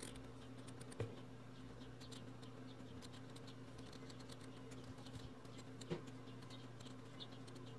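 Scissors cutting through felt: faint, irregular small snips and clicks of the blades, a little louder about a second in and again near six seconds, over a low steady hum.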